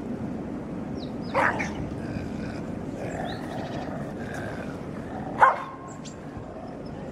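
Dogs barking: two sharp single barks about four seconds apart, the second the louder, with fainter short calls between.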